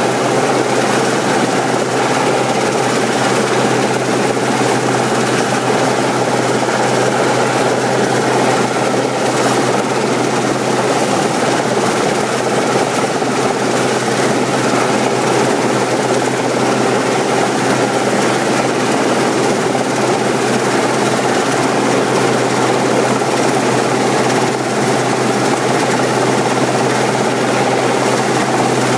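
RAF Westland Sea King search-and-rescue helicopter hovering low overhead: loud, steady rotor and twin-turbine noise with a thin high whine above it.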